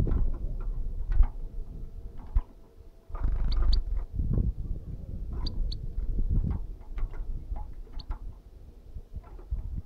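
European goldfinch moving about its cage among sunflower seed husks: irregular knocks, clicks and scratching, with a few brief high chirps, twice in quick pairs.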